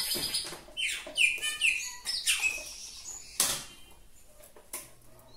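A bird chirping repeatedly in quick falling whistles, thickest in the first three seconds and then thinning out. A single sharp click sounds about three and a half seconds in.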